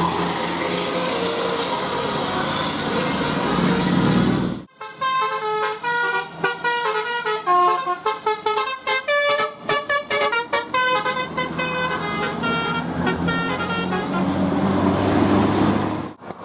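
Bus telolet horn (Basuri multi-tone air horn) playing a quick melody of short, stepped notes, over the noise of bus engines and traffic. The sound changes abruptly at a cut about a third of the way in, and again just before the end.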